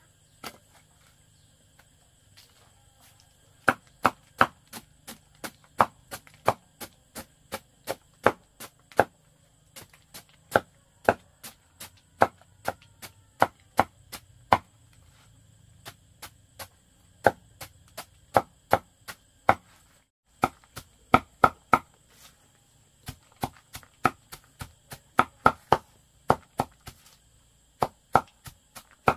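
Repeated chopping with a blade, sharp strikes about two a second, starting a few seconds in and going on in runs broken by short pauses.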